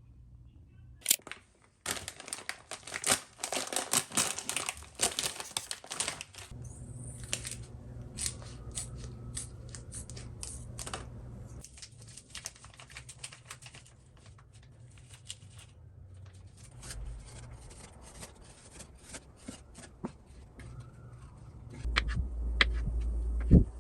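Crinkling and tearing handling noise, dense for a few seconds early on and then thinning to scattered clicks and rustles, with a low rumble coming in near the end.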